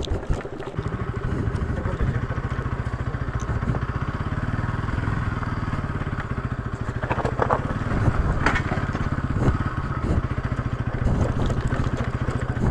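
Motorcycle engine running steadily at low speed while riding over a rocky, broken off-road track, with a few clatters from the bike over the stones in the second half.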